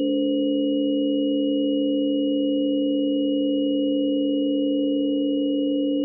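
Microphone–loudspeaker acoustic feedback, shaped by computer processing, holding several pure steady tones together: a strong low pair, one about an octave above, and a thin high tone, all unchanging.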